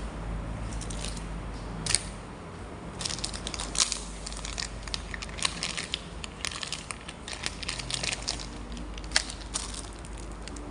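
Plastic packaging being crinkled and handled while a parcel is unwrapped, with a few sharp clicks and snaps among the rustling.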